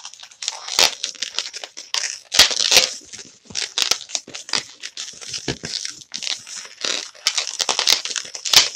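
Pink 260 latex modelling balloon being twisted and squeezed by hand: rubber rubbing against itself and the fingers in a quick, irregular run of scrapes and crinkles as bubbles are twisted and locked into a joint.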